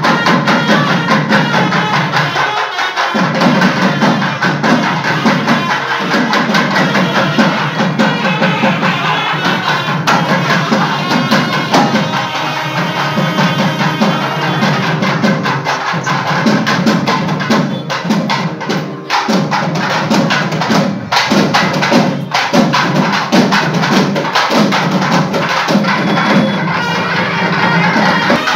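Loud traditional temple festival percussion: drums beaten in a fast, steady rhythm with a crowd around them.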